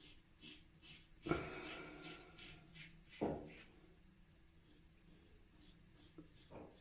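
Feather ASD2 double-edge safety razor with a Personna Platinum blade scraping through lathered beard stubble in short, repeated strokes. It is faint, with two louder rasping strokes, about a second and three seconds in.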